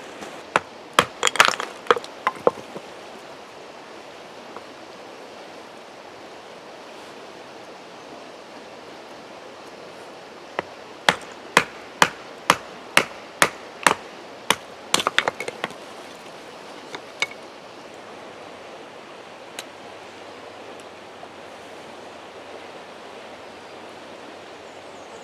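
A knife being batoned down through a small piece of wood to split it: an even run of about a dozen sharp knocks, roughly two a second, over the steady rush of a creek. A quick cluster of sharp clicks and knocks comes in the first couple of seconds, and a few single knocks follow the run.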